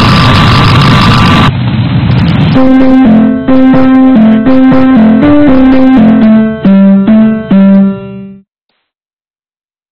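Loud, harsh, distorted noise for about a second and a half. Then comes a short electric-piano tune of single notes, about two a second, which stops abruptly into silence near the end.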